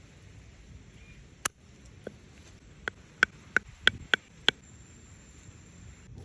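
About eight short, sharp knocks, irregularly spaced and bunched together over a few seconds, each with a brief ringing tone, like hard strikes on wood.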